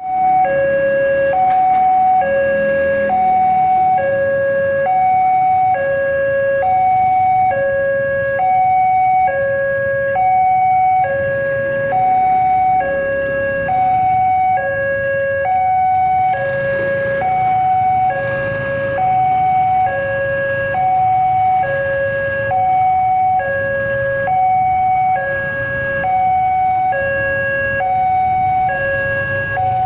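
Indonesian railway level-crossing warning alarm sounding: an electronic two-tone signal that steadily alternates a high and a low tone, each held just under a second, warning that a train is approaching.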